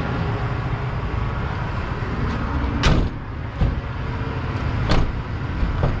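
Rear cargo doors of a Ram van being swung shut, with several sharp thuds and clunks starting about halfway through and again near the end, over a steady low rumble.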